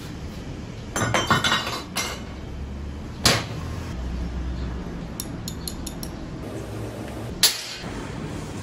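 Steel pieces clanking on a steel workbench as they are handled and set down: a cluster of knocks about a second in, a sharp clink around three seconds and again near the end, and a few quick light clicks in between.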